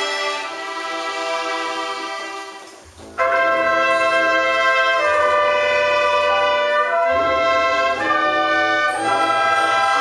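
Choir and orchestra performing, holding sustained chords. The music dips briefly about three seconds in, then comes back louder and fuller with a deep bass, the chords changing every two seconds or so.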